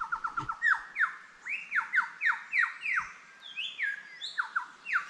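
Superb lyrebird singing: a rapid string of loud downward-sweeping whistles that slows to about three slurred notes a second, then turns to higher, shorter sweeping notes near the end.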